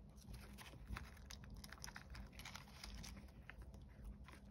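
Faint rustling and light clicking of small paper stamp pieces being sorted through by hand in a clear plastic tub, with a slightly sharper click about a second in.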